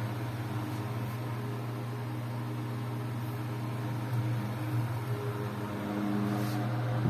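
Antique GE metal electric fan running, its motor giving a steady low hum with fainter higher tones over a light hiss.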